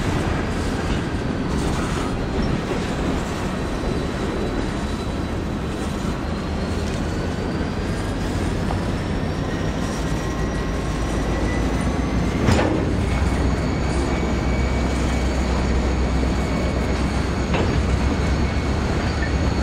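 Empty coal hopper cars rolling past in a steady rumble, with thin, wavering squeals from the wheels. A single sharp bang comes about twelve seconds in, and a lighter knock a few seconds later.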